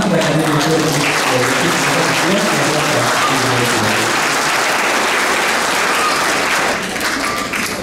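Guests applauding: a dense, steady clapping that builds about a second in and tails off near the end.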